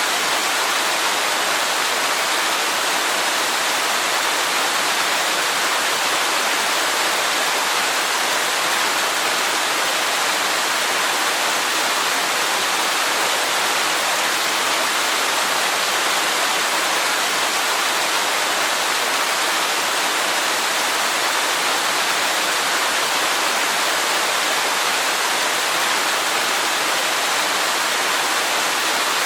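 Waterfall: a steady, unbroken rush of falling water, mostly hiss with little deep rumble.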